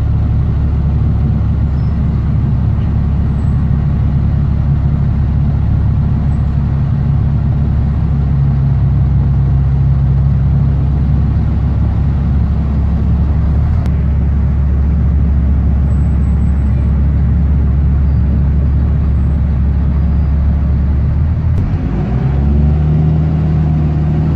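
BMC Condor bus engine with a blown exhaust, heard from inside the saloon while driving: a loud, steady low drone. Its pitch climbs near the end as the bus accelerates.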